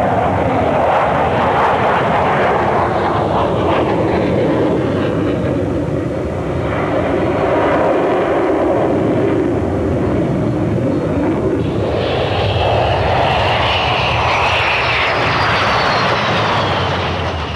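Jet engines of the Northrop YF-23 prototypes running steadily as the aircraft fly past. About twelve seconds in the sound changes, and a high whine glides down in pitch near the end.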